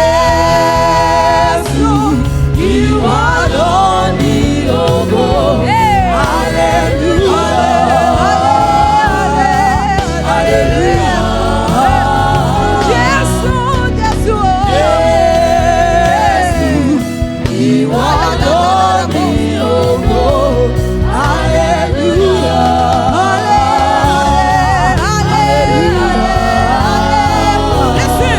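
Gospel praise and worship music: voices singing a melody together over a band with bass and drums.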